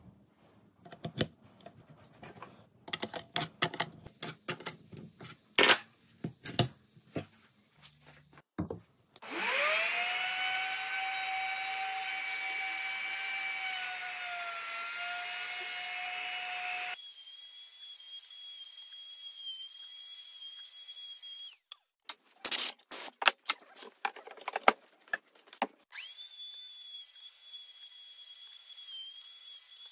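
Small clicks and taps of metal parts being handled and fitted. About nine seconds in, an AEG plunge router switches on, spins up with a rising whine and runs steadily at high speed. It stops, there is a spell of knocks and clicks, and then the router runs again steadily.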